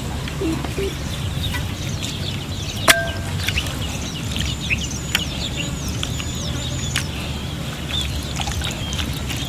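Birds calling outdoors, with a run of quick, repeated high chirps in the middle, over steady low background noise and a few sharp clicks.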